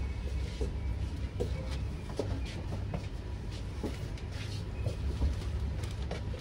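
Inside a Yurikamome rubber-tyred automated train running along its guideway: a steady low rumble with light clicks and rattles every second or so.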